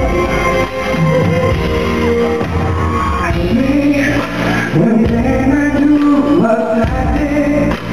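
Live pop concert music heard through a large hall's PA: a male singer's amplified vocals over the band and backing track.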